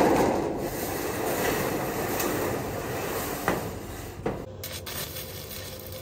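Corrugated metal roofing sheet sliding and scraping over the steel frame of a cage: a rattling metal rumble, loudest at the start and fading, with a couple of sharp knocks near the end.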